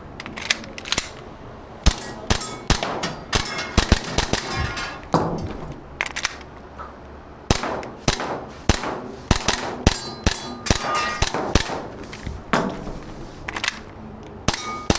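Airsoft pistol firing quick strings of shots during an IPSC stage run, with pauses between strings, and steel targets clanging as they are hit.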